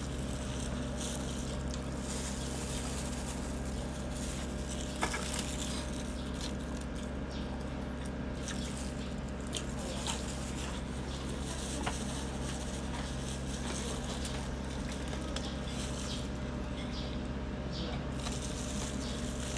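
Steady low background hum, with a few faint clicks about five, ten and twelve seconds in.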